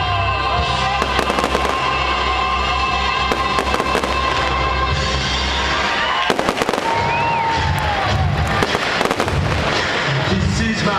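Fireworks display: shells bursting and crackling in quick succession, with music playing underneath.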